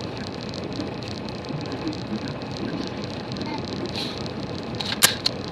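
Steady background noise with a faint murmur, and a single sharp click about five seconds in.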